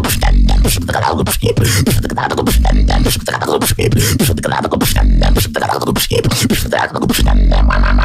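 Human beatboxing: a dense run of sharp mouth-made snare and hi-hat clicks, several a second, under deep vocal bass drops that come about every two seconds, with gliding, wobbling vocal bass lines in between.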